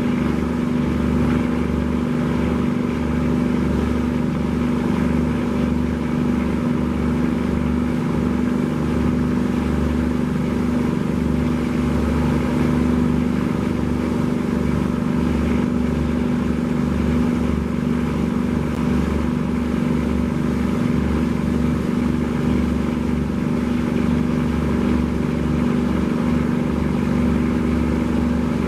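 Boat engine running steadily: a constant low drone with a strong steady hum, unchanged throughout.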